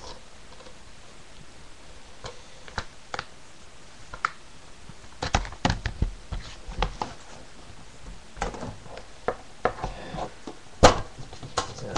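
Plastic DVD cases being handled and set down: a string of irregular clicks and knocks, with the sharpest knock near the end.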